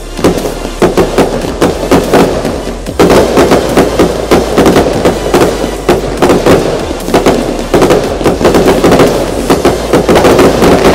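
Fireworks display: a continuous barrage of bangs and crackles, many reports a second, getting louder from about three seconds in.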